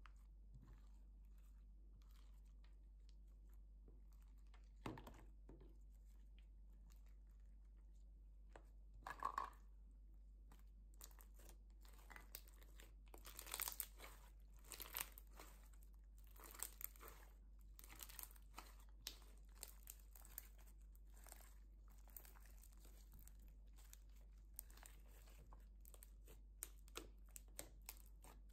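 Clear green slime with foam beads being kneaded and stretched by hand: faint sticky pops and crackles, sparse at first and coming thick and fast from about ten seconds in.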